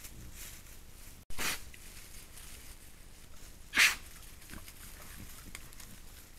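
Wild boar foraging in dry leaf litter, with faint rustling and steps, and one sharp snort about four seconds in. A brief rush of noise follows a short gap about a second in.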